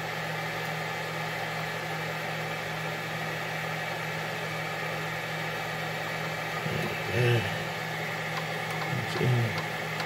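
Steady hum of the FlashForge Guider II 3D printer's fans running while its hot end is heated, with a few faint clicks of a small screwdriver near the end.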